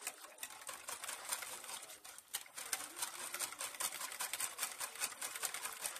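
Wire whisk beating a thin yogurt mixture in a bowl: rapid, even strokes of the wires clicking and sloshing against the bowl, with a brief slackening about two seconds in.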